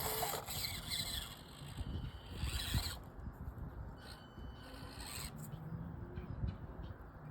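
Axial SCX24 micro RC crawler's brushed motor and gears whining while its tyres scrabble and rasp on a steep slope it cannot climb. The whine drops away about three seconds in, then comes back faintly with a few light clicks.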